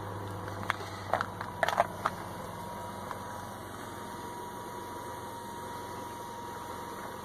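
Steady low hum of a car engine idling, with a few sharp clicks about one to two seconds in and a faint steady high whine after them.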